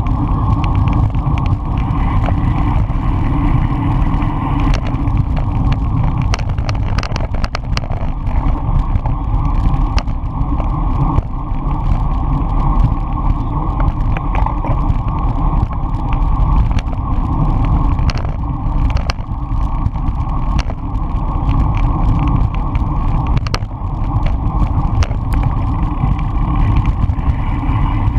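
Wind rushing over a handlebar-mounted camera's microphone with tyre and road rumble from a road bicycle ridden fast, steady and loud. Scattered short clicks and rattles come through throughout.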